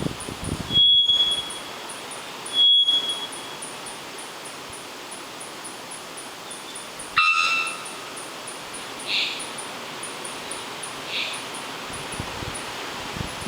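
Three-wattled bellbird calling: two loud, steady pure whistles, about a second in and near three seconds, then a sharp explosive 'bonk' note about seven seconds in, followed by two fainter notes. A fast, high insect ticking runs underneath.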